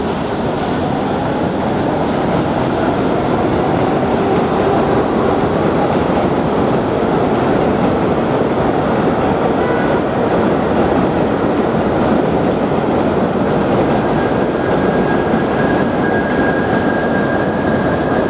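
New York City subway train running along the platform, a loud steady rumble and rush of wheels on rail, with a faint high wheel squeal in the last few seconds.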